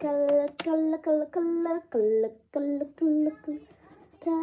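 A young girl singing a wordless little tune to herself, a string of short held notes that step up and down in pitch.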